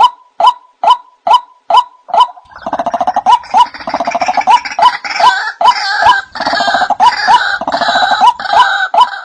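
White-breasted waterhen call: a short 'wak' note repeated a little over twice a second, joined from about two and a half seconds in by a denser, harsher stretch of rapid pulsing calls that runs almost to the end.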